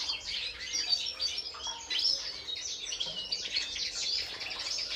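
European goldfinches twittering: a steady stream of quick, high chirps and short trilled notes from caged birds.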